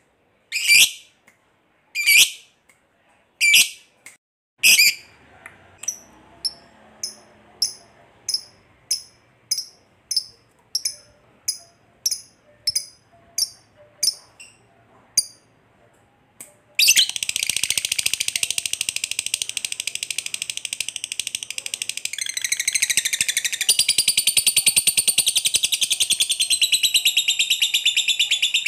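Masked lovebird calling: a string of sharp, high chirps, loud and evenly spaced at first, then softer and quicker, and about seventeen seconds in it breaks into a long unbroken rapid chatter, the 'ngekek panjang' that lovebird keepers prize.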